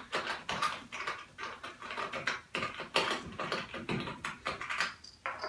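A knob being unscrewed by hand from the threaded mount of a solar-panel foot: a run of quick, irregular clicks and small scrapes of the parts being handled.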